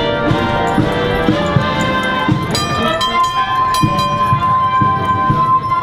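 Instrumental music with sustained chords and a long held high note from about halfway through, over soft low thuds.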